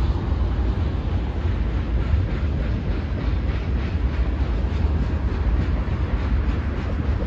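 Freight train cars rolling past on the rails: a steady, unbroken rumble.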